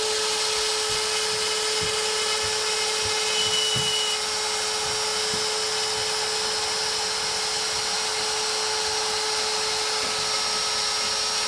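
X-Carve CNC router spindle running at a steady whine while a 1/8-inch single-flute endmill cuts the outline of an acrylic-type plastic template. A short higher-pitched squeal comes in briefly about three seconds in.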